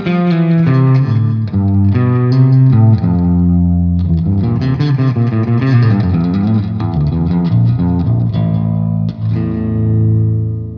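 B.C. Rich Shredzilla electric guitar played through its DiMarzio neck and bridge pickups together, tuned down to A standard: a run of picked notes and chords. About nine seconds in, a chord is struck and left to ring out, fading near the end.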